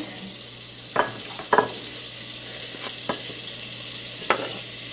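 Butter sizzling in a hot Dutch oven, a steady hiss. Four sharp knocks of a knife cutting stew beef on a wooden cutting board come through it.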